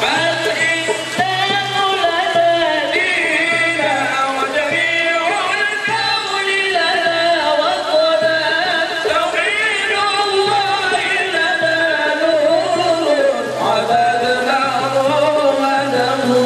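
A single voice chanting in the ornamented Middle Eastern style of Quran recitation, holding long notes that wind up and down in pitch.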